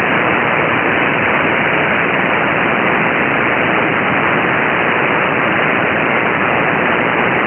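Elecraft K3S HF receiver in AM mode giving steady static and hiss, with no treble, as it is tuned across empty frequencies on the 75-meter band between stations.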